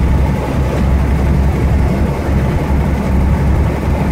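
A medium-duty truck's engine and road noise, heard as a steady low drone inside the cab while the truck drives at about 50 mph with the engine near 1,400 rpm.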